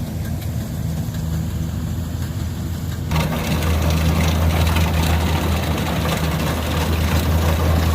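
Diesel engine of a Kubota DC60 combine harvester running steadily with a low hum. About three seconds in, the sound abruptly becomes louder, with a broad rushing noise added over the engine.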